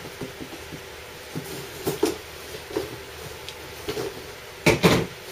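A knife slitting the packing tape on a small cardboard box, with light scraping and rustling, then the cardboard flaps being pulled open, loudest near the end.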